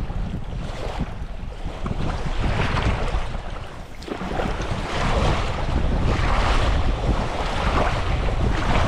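Wind buffeting the microphone with a heavy low rumble, over the wash of sea waves. The sound dips briefly about four seconds in, then rises again.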